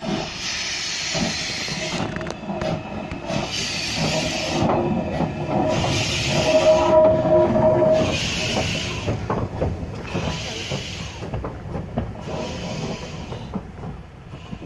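Steam locomotive No. 419 moving off slowly, with long hissing steam beats about every two seconds. A held ringing tone sounds in the middle, and the wheels click over the rail joints as it passes, the sound fading near the end.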